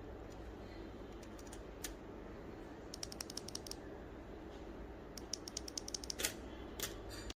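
Kailh silent mouse micro switch being clicked repeatedly: short clicks in quick runs of several, about three and five seconds in, with a few louder single clicks near the end, over a steady low hum.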